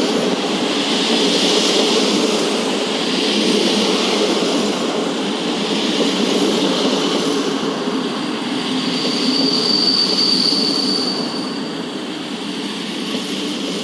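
Train running past on the rails with a steady rolling rumble and wheel-on-rail noise. About eight seconds in, a thin high wheel squeal holds for a few seconds.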